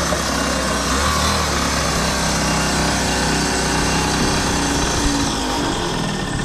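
Small gas engine of a homemade radio-controlled go-kart running steadily, which the owner calls running perfect.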